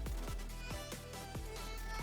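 Background music with an electronic beat: a deep kick drum about every two thirds of a second under held synth notes.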